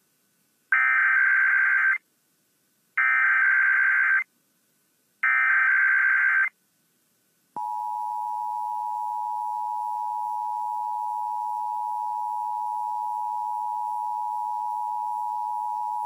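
Emergency Alert System header for a Required Weekly Test: three short bursts of warbling data tone, each about a second long and a second apart, then about seven and a half seconds in the steady two-tone EAS attention signal (853 and 960 Hz) begins.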